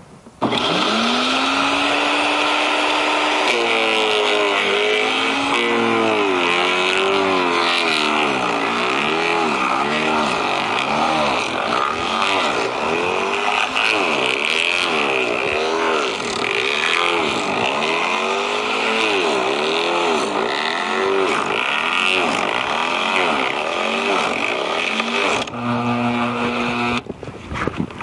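Garden branch shredder running loud, coming up to speed over the first few seconds, then its pitch dipping and recovering again and again as branches are fed in and load it. Near the end it runs steady for a moment, then the sound cuts off.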